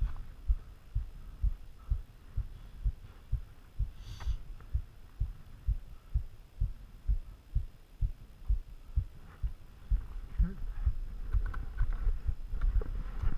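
Muffled low thumps, two or three a second, on an action camera's housed microphone: buffeting and knocking as it is worn on a climb. A brief scrape about four seconds in.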